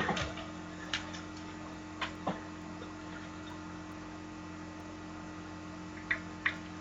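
Quiet room with a steady low electrical hum and a few light clicks and taps, two close together about two seconds in and two more near the end.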